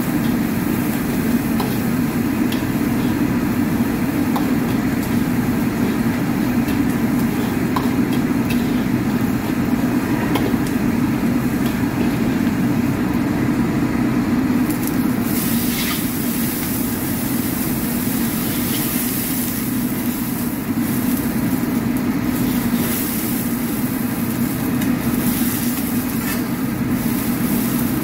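Commercial gas wok burner running with a steady low roar, with water running from the range tap. About halfway through, a brighter hiss joins in.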